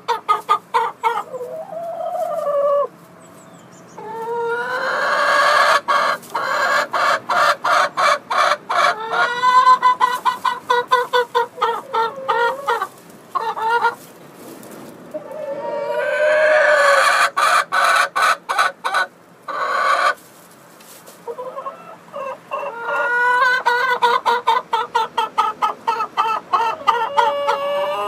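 Hens cackling loudly in three long bouts of rapid, repeated clucks mixed with drawn-out calls: the egg song hens give around laying.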